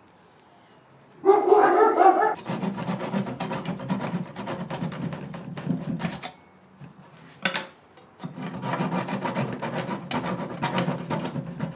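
A hand tool rasping or scraping wood in rapid, continuous strokes, in two long runs separated by a short pause with a single click. About a second in there is a short, loud pitched sound lasting about a second.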